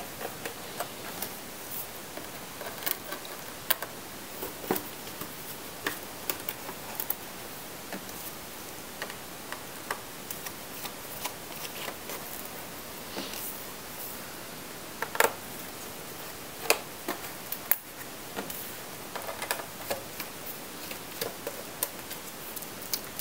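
Scattered light clicks and ticks of a small Phillips screwdriver backing out the screws of a 15-inch MacBook Pro's aluminium bottom case, over a low steady hiss. A few sharper clicks come around two-thirds of the way in.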